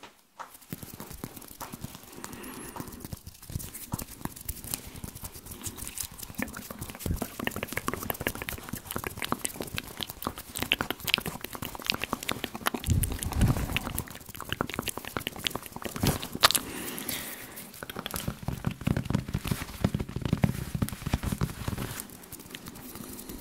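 ASMR hand sounds right at a microphone: fingers rubbing, fluttering and tapping, making a dense stream of fast, crackly clicks and rustles. Deeper, louder stretches come about halfway through and again near the end.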